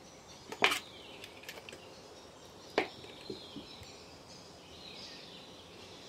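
Utility knife blade cutting through a thin plastic drink bottle: sharp crackles and clicks of the plastic, the loudest about half a second in and another near three seconds, with a few smaller ticks after it.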